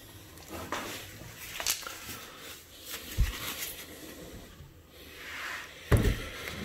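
Handling noises on a wooden bench: a few light clicks and knocks, then a dull thump near the end as a plastic jar of liquid is lifted off the bench.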